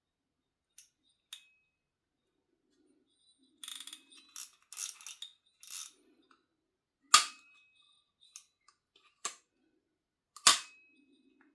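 A new fishing reel and its packaging being handled: a couple of light clicks, a stretch of rustling and crinkling between about four and six seconds in, then two sharp clacks with a short ring, about seven and ten and a half seconds in, the loudest sounds.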